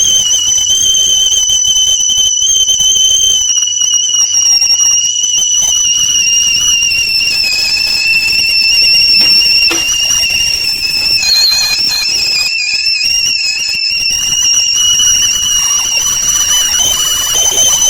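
Stainless steel stovetop tea kettle whistling with a steady high pitch that wavers slightly, with a fainter second tone an octave above.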